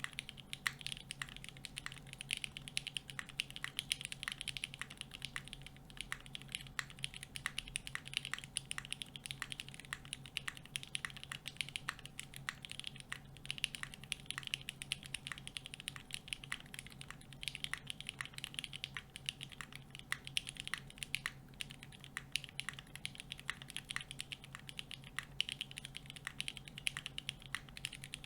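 Continuous typing on a Singa x TGR Unikorn 60% custom mechanical keyboard with broken-in vintage Cherry MX Black linear switches, an aluminium full plate and GMK Classic Blue ABS keycaps: a fast, uneven run of keystrokes, several a second, over a faint steady hum.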